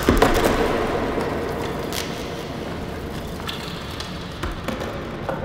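A rumbling, crackling noise slowly dying away after a crash, with a few scattered sharp clicks. It is the sound laid over a Life Saver candy cracking apart in slow motion.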